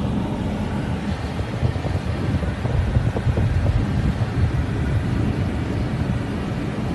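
Car driving, heard from inside the cabin: a low, uneven rumble of road and engine noise, a little louder in the middle.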